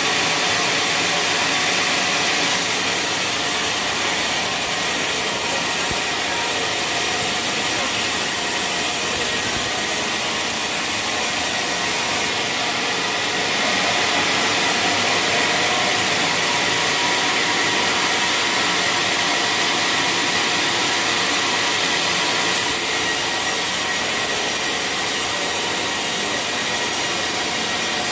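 Sawmill saw cutting through waru (hibiscus) wood: a loud, steady cutting noise with a hissy edge that shifts slightly about twelve seconds in and again about twenty-two seconds in.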